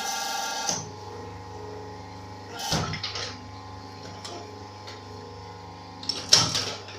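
Automatic injection molding machine running with a steady hum, a short hiss at the start, and two sharp clacks about three and six seconds in, the second the loudest.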